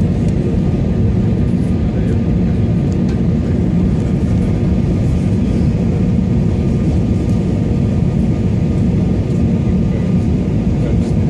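Cabin noise inside an Airbus A320 in flight on approach: engines and airflow make a low, even roar, with a faint steady whine above it.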